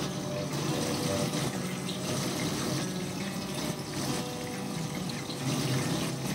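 Okra frying in a pan of hot oil: a steady sizzle and bubbling.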